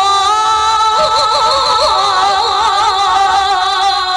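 A woman reciting the Qur'an in the melodic, ornamented qira'ah style, drawing out one long held phrase after the word 'yarju'. About a second in her voice steps up in pitch into rapid warbling trills, then settles back to the lower held note.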